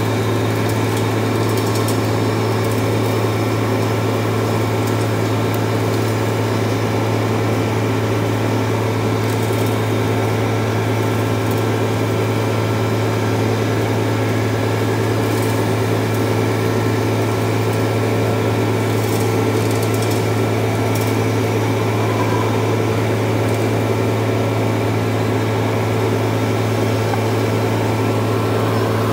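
Vacuum excavation truck running steadily, a constant low engine and blower drone with a few faint clicks over it.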